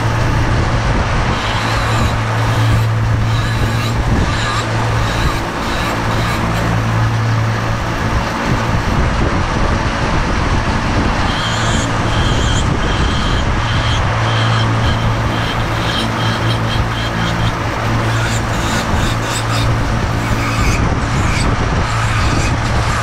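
A flexible-shaft rotary carving tool running steadily, its bit grinding away at a wooden decoy head. The motor's hum drops out for a few seconds near the middle, then comes back.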